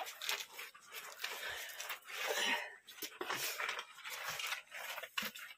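A person breathing hard, in rushes, with scuffs and knocks of hands and feet on rock while clambering through a narrow cave passage.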